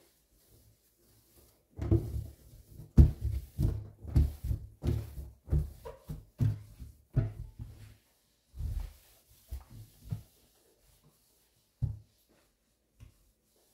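A cloth being rubbed hard over a stainless steel sink drainboard to polish it. Quick back-and-forth wiping strokes come about two or three a second, each with a dull thud from the steel, and grow slower and sparser in the last few seconds.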